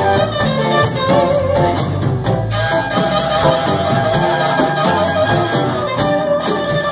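Live blues band playing an instrumental break: electric guitars over bass and drums. A steady cymbal beat runs at about two strokes a second under a held, wavering lead note.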